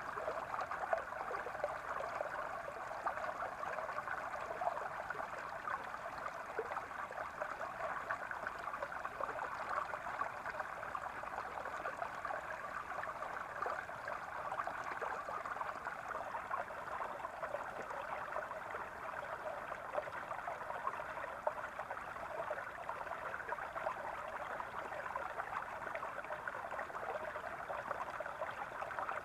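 A small brook running over stones: steady burbling and gurgling water.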